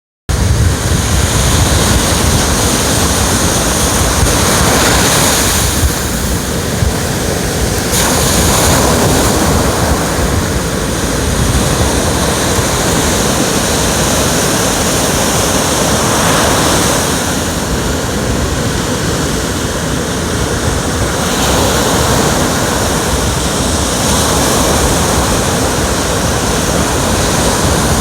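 Ocean waves washing onto the shore, a steady rushing surf that swells and eases every several seconds.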